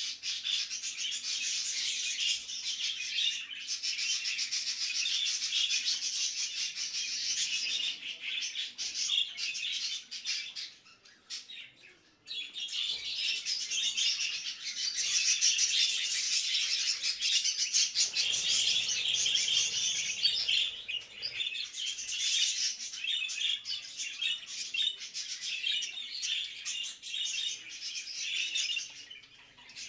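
Budgerigars chattering and warbling in a dense, continuous chorus of rapid chirps. The chatter thins and almost stops about ten to twelve seconds in, then picks up again at full strength.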